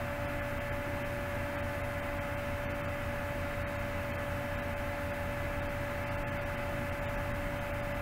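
Steady background hum and hiss with one faint constant tone, unchanging throughout; no engine revving or other events are heard.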